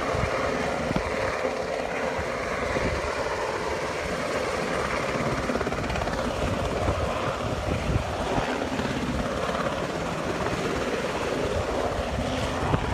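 MH-60 Jayhawk helicopter hovering low, its rotor and twin turboshaft engines running with a steady, loud chop and whine.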